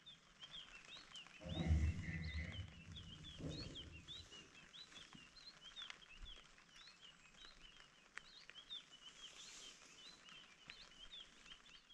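Birds chirping with many quick, short repeated notes. A brief low sound comes about one and a half seconds in, and a shorter one about two seconds later.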